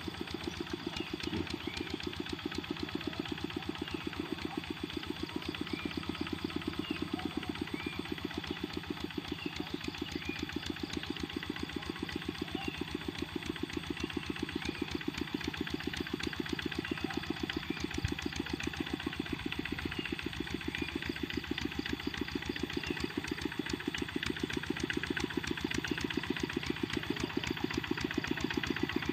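Kubota RD65 single-cylinder diesel on a hand tractor running steadily, with a fast, even chug of firing strokes. It grows a little louder near the end.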